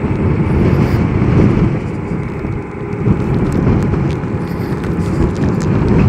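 Wind and road noise of a Zero DSR electric motorcycle being ridden along a street: a steady, loud rush heaviest in the low end, with wind buffeting the microphone and no engine note.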